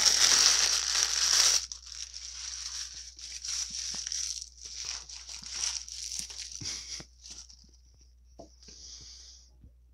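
Close-miked crumpling and crinkling of a white paper food wrapper, loud for about the first second and a half. It then goes on as softer, scattered crinkles and small clicks that fade toward the end.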